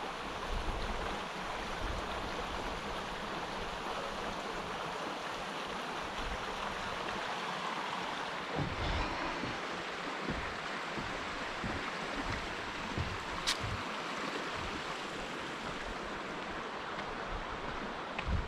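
Flowing stream water rushing steadily, with a few scattered low thumps and one sharp click near the end.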